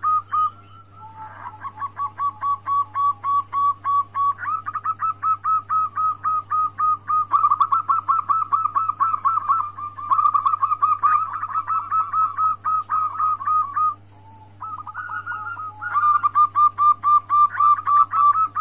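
Female zebra dove (perkutut) calling in long runs of rapid, evenly repeated cooing notes, about five a second, with short breaks about a second in and about three-quarters of the way through. This is the female's call to a male, used to bring a male into breeding condition. A faint high ticking runs steadily behind it.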